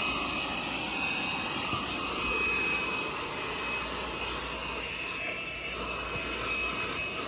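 VNOST cordless handheld car vacuum running steadily, its motor giving a whooshing rush with a high whine, as it sucks up debris.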